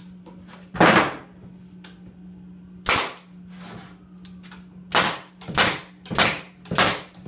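Pneumatic stapler driving 1.5-inch crown staples into wooden box joints: six sharp shots, two about two seconds apart, then four in quick succession about every 0.6 seconds.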